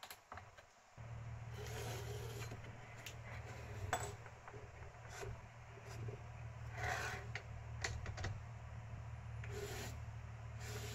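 DIY camera slider's carriage pushed by hand along its steel guide rods, making a rubbing, scraping sound with a few sharp knocks along the way, as the slide is checked for resistance. A steady low hum runs underneath from about a second in.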